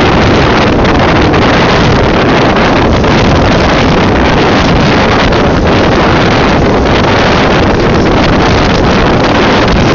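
Loud wind buffeting the microphone over the steady running noise of a small aluminium pontoon boat under way on choppy water.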